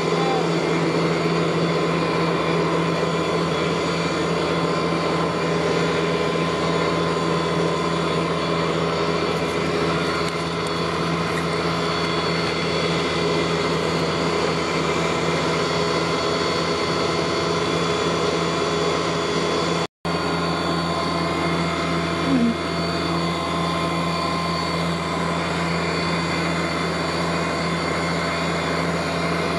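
A steady, unchanging mechanical drone with many fixed pitches, cutting out completely for a moment about twenty seconds in.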